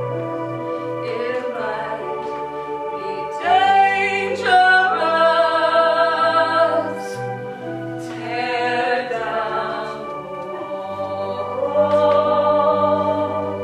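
Singing over held accompaniment chords and a low bass line that changes note every second or two. The voice comes in three wavering phrases; the loudest is about four seconds in.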